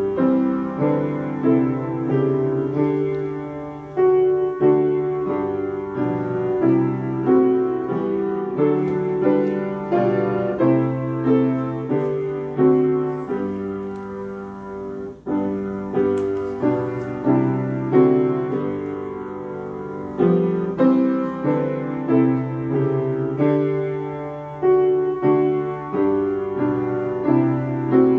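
Piano playing a slow hymn in full chords, each chord struck and left to ring.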